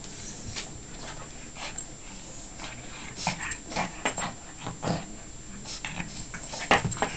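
Pekingese and golden retriever play-fighting: short dog vocalisations and scuffling, starting about three seconds in, with the loudest one near the end.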